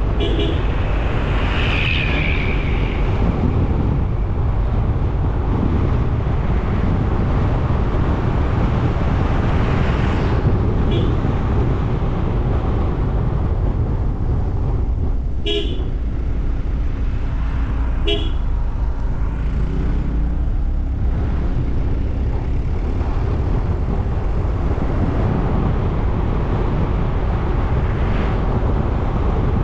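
Steady road and engine noise from a car driving, with several short horn toots along the way.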